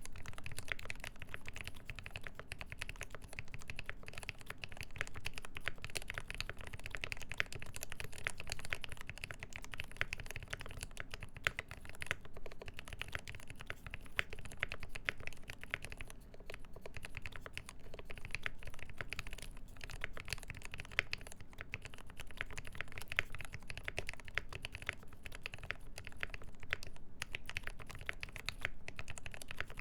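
Continuous fast typing on a Mode 80 mechanical keyboard with a full brass plate, GMK keycaps and lubed linear Tealios switches with milky Gateron top housings: a steady stream of keystroke clacks with no pauses.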